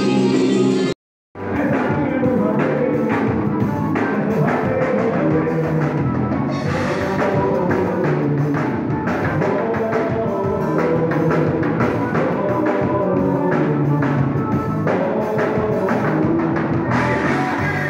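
A live band playing with accordion, drums and a singer. About a second in, the sound cuts out briefly and the band's music starts.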